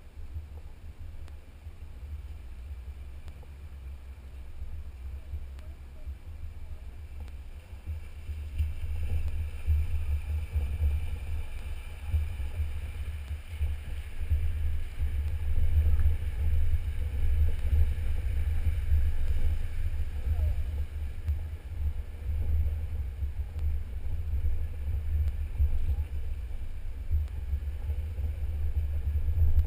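Low rumble of a Jeep driving a rough dirt trail, heard through a hood-mounted camera, with wind buffeting the microphone; it grows louder about a third of the way in.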